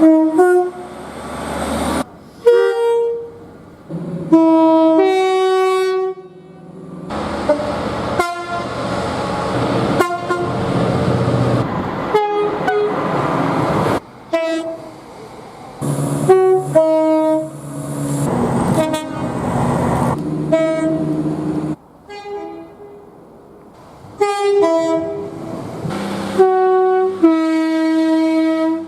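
A rapid succession of different train horns, some sounding two or more notes together, each blast lasting about a second or two over the running noise of passing trains. The sound cuts abruptly from one horn to the next every few seconds.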